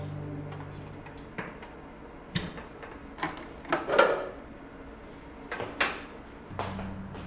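Kitchen cleaning and handling sounds: a series of light knocks and clacks at uneven intervals as things are picked up and set down, the loudest about four seconds in. Background music fades out at the start.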